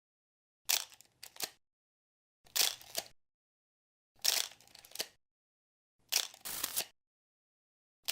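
Film projector sound effect: four short bursts of mechanical clicking and rattling, about every two seconds, with silence between them.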